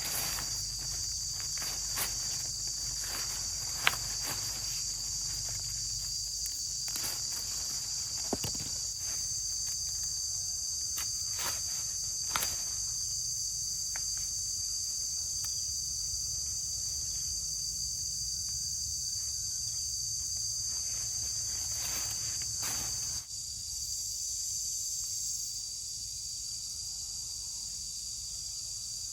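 Steady, high-pitched insect chorus, with scattered light clicks and knocks.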